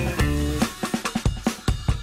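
Background music: held bass and chord notes, then about half a second in a fast, steady drum pattern takes over.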